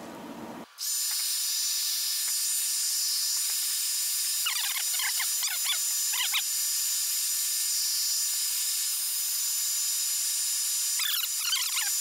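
A handheld hot-air blower switches on about a second in and runs with a steady hiss and a thin high whine, heating the iPad 2's digitizer glass to soften its adhesive. Twice, around the middle and again near the end, short spells of high wavering squeaks sound over it.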